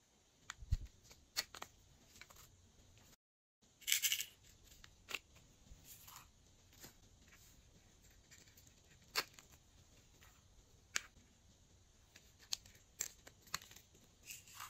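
Small hard plastic cases handled and opened by hand: scattered sharp clicks and taps, with a brief rustle about four seconds in as sequins are shaken out.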